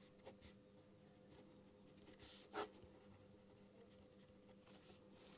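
Near silence: a faint steady electrical hum, with a few soft pen strokes and taps on paper, the clearest a brief scratch about two seconds in.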